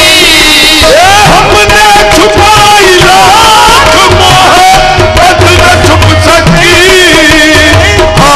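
Loud qawwali: a male lead singer sings a wavering, ornamented melodic line over harmonium. The harmonium holds a steady note beneath him, and hand percussion keeps a regular beat.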